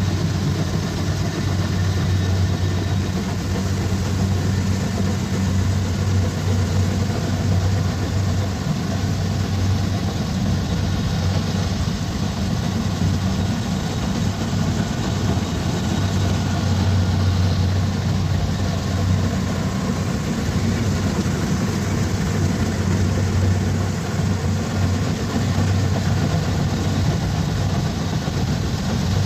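Kubota DC-70 Plus combine harvester's diesel engine running steadily with a low, even drone.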